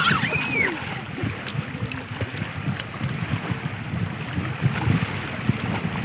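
Wind buffeting the phone's microphone, an uneven low rumble, with one brief high squeal just at the start.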